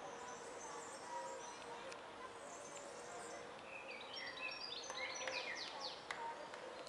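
Faint outdoor ambience with birds chirping high up, a busier run of quick falling chirps about four to five seconds in, over a faint murmur of distant voices.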